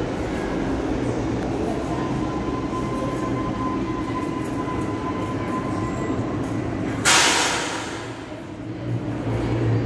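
R62A subway train on the 42nd Street Shuttle pulling into the station and coming to a stop, with a steady rumble and a faint steady whine. About seven seconds in there is a sudden loud hiss that fades over about a second as the train stops.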